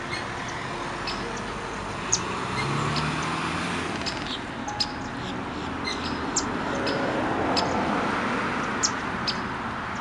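Steady hum of distant road traffic, with short, high chirps from small birds scattered throughout.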